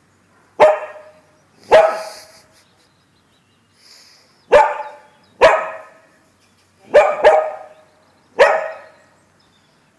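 Lagotto Romagnolo barking at a cat: seven single, loud barks at uneven spacing, two of them in quick succession about seven seconds in.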